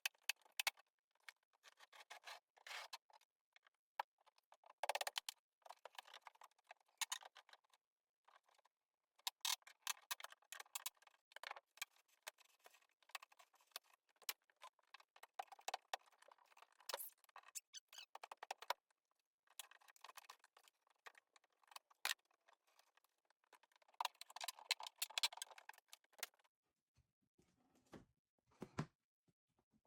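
Faint, irregular scraping, rattling and sharp clicks of hand work on an old nailed wooden wall, in short clusters with pauses between them.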